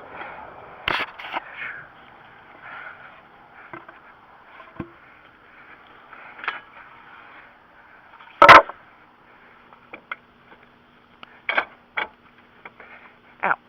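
Scattered metal knocks and scrapes from a steel jack stand being worked loose from under a lowered SUV, with one loud clank a little past the middle and a few sharper knocks near the end, over a faint steady hum.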